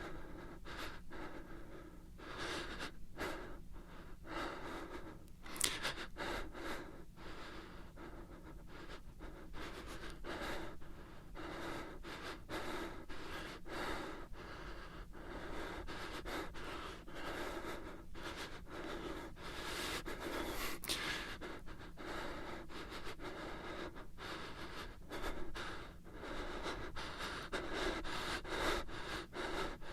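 A terrified man breathing fast and shakily, with rapid panting and sharp, irregular gasps.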